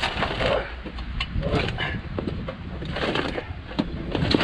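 Irregular clunks, knocks and scraping as a Volkswagen 1600 dual-port air-cooled engine is shifted by hand on the ground.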